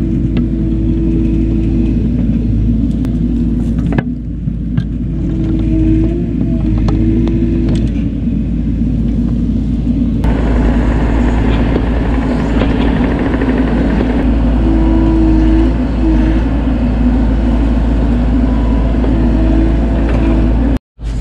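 Bobcat E42 mini excavator's diesel engine and hydraulics running while it digs a trench, a steady rumble with a pitched hum that swells and fades as the arm and bucket work. A few sharp knocks of the bucket against dirt and stones.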